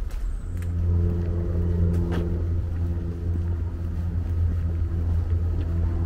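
Low, steady engine hum that comes up about half a second in and holds.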